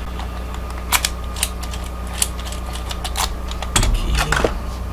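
Light metallic clicks from keys and a rekeyed Kwikset lock being handled and tried: a few single clicks about a second apart, then a short run of rattling clicks near the end, over a steady electrical hum.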